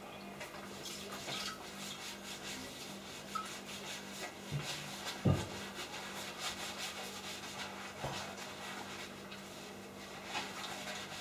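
Small scrapes and light clinks of tableware, with one stronger knock about five seconds in, over a steady low hum.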